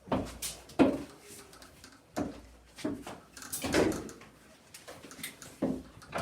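Irregular knocks and thumps, about six spread over several seconds, as a chest freezer is worked up basement stairs.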